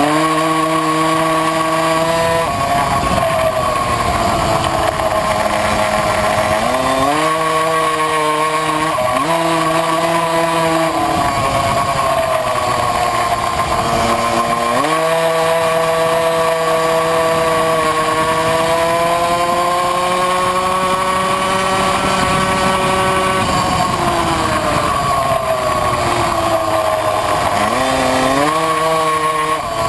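Tuned 70cc two-stroke engine of a Puch Maxi racing moped at full throttle, its pitch climbing steadily along each straight and dropping sharply several times as the throttle comes off for corners.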